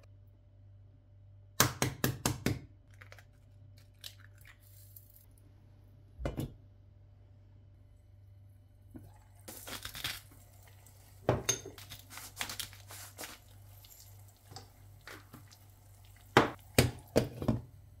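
Sounds of an egg frying in butter in a small non-stick pan. There are quick runs of sharp clicks and taps, and a short hiss about halfway through as salt is sprinkled over the egg. Near the end comes a quick clatter of clinks as a glass lid with a steel knob is set on the pan, all over a low steady hum.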